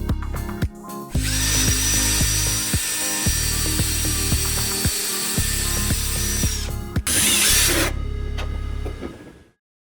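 A drill-like electric power tool runs steadily with a high whine for about five seconds, then runs again in a short burst, over background music; the sound fades out and cuts to silence just before the end.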